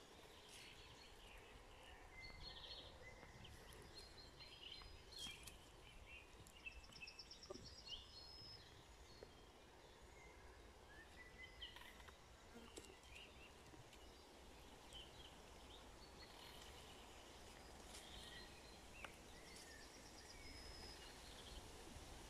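Faint woodland birdsong: scattered short high chirps and a couple of brief trills over a quiet background.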